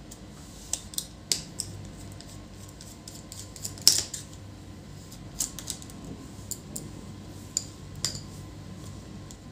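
Irregular sharp clicks and taps of a small screwdriver and screws against a laptop's metal chassis during disassembly, the loudest about four seconds in.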